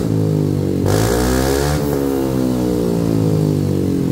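Yamaha NMAX scooter's single-cylinder engine running through a newly fitted SKR aftermarket racing exhaust. It settles from a rev at the start, is blipped once more about a second in, with the pitch rising and falling, then idles steadily.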